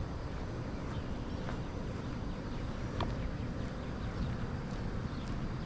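Outdoor ambience heard while walking: a steady low rumble on the microphone with faint footsteps on pavement and an occasional faint bird chirp.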